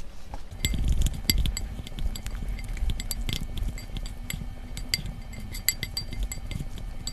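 Wooden chopsticks mixing jjolmyeon noodles with their red sauce in a bowl: many quick light clicks and taps of the chopsticks against the bowl and each other as the noodles are tossed.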